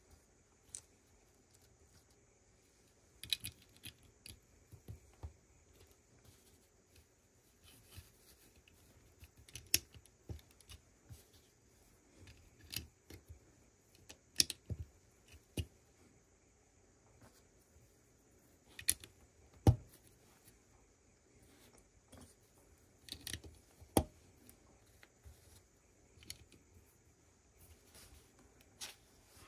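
Plastic Lego pieces being handled and pressed together: irregular sharp clicks and taps, with one louder snap about two-thirds of the way through.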